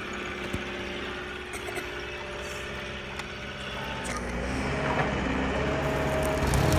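A vehicle engine-like running sound, under a steady low hum, that grows louder about four seconds in.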